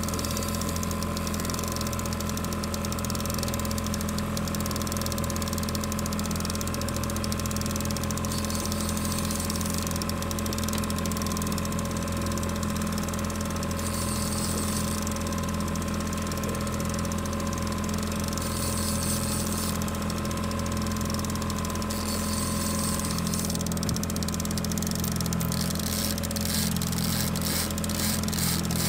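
Boat's outboard motor idling steadily, a constant low hum. A rapid ticking joins in near the end.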